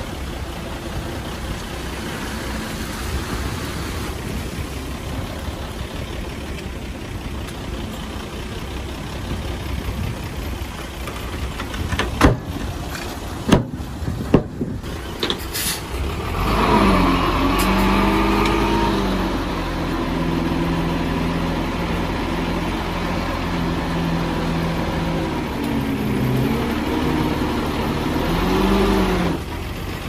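Heavy diesel earthmoving machinery running steadily, with a few sharp knocks a little before halfway. Then a diesel engine revs up and works hard, its pitch rising and falling, until it drops back just before the end.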